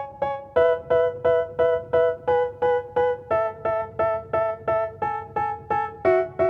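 Background music: short keyboard chords struck about three times a second, the chord changing a few times.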